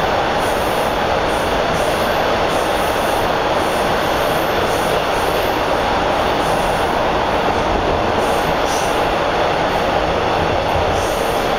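A TTC Bombardier T1 subway car running along the line, heard from inside the car: a steady, loud noise of wheels on rail and running gear that holds even throughout.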